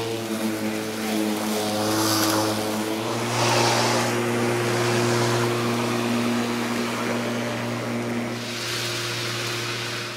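Black and Decker cordless electric lawn mower running, its motor and blade giving a steady whirring hum, with a few brief swells of hiss as it cuts.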